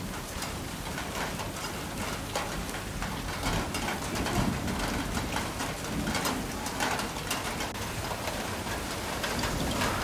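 Steady rain, with many drops ticking sharply on hard surfaces.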